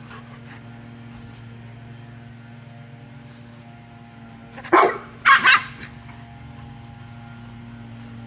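A dog barking three times in quick succession about halfway through, while two dogs play.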